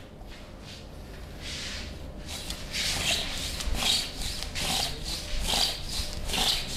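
Hands rubbing in repeated massage strokes, a soft swishing roughly every three quarters of a second, which starts after a fainter rubbing sound about two and a half seconds in.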